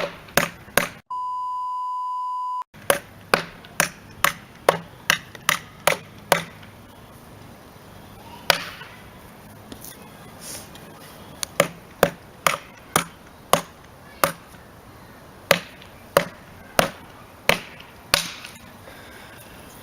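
A hammer striking a chair over and over, at first about three blows a second. After a pause it goes on with a regular run of blows about two a second. About a second in, a steady beep tone cuts in for about a second and a half.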